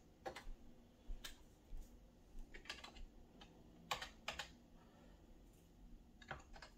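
Computer keyboard being typed on in slow, scattered keystrokes, a few quick clicks at a time with pauses between them.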